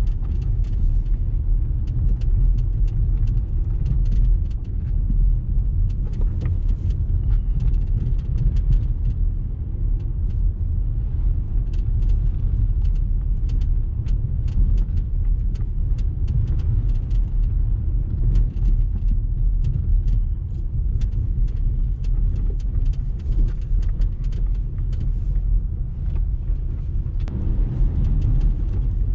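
Cabin sound of a 2019 Skoda Kodiaq with a 2.0 TDI four-cylinder diesel driving slowly over packed snow and ice. There is a steady low rumble of engine and tyres, with many short sharp crackles throughout.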